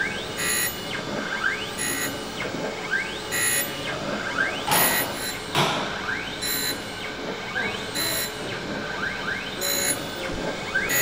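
Surface grinder plunge grinding a metal block: the wheel hisses against the work in short bursts with each pass of the reciprocating table. Short rising whines recur throughout.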